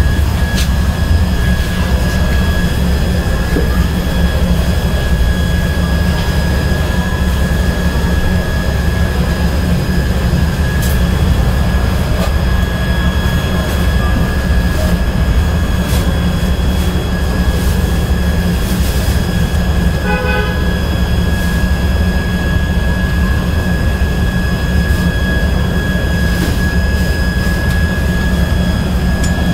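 Steady, loud machine drone with a constant high-pitched whine above it, from running equipment around an elevator controller cabinet. A few faint clicks and a brief beep-like tone about 20 seconds in.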